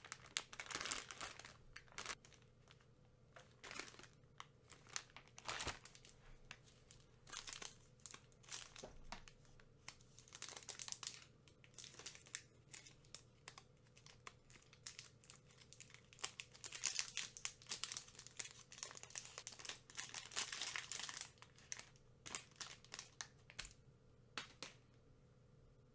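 Plastic candy wrappers crinkling and tearing in the hands in irregular bursts of crackles, as a Ricolino Mini Paleta Payaso bag and a lollipop's wrapper are opened.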